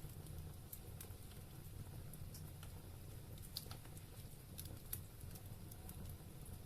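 Wood fire burning in a fireplace, crackling faintly with irregular sharp pops and ticks, the louder ones about three and a half and five seconds in, over a low steady rumble.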